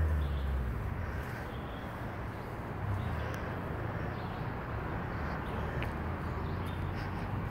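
Walking through woodland while filming: faint irregular footsteps in dry leaf litter over a steady low rumble of phone handling, stronger in the first second, with a few faint bird chirps.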